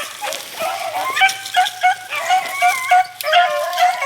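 A pack of beagles baying and yelping, several dogs' cries overlapping in short, repeated calls, quieter at first and louder from about a second in.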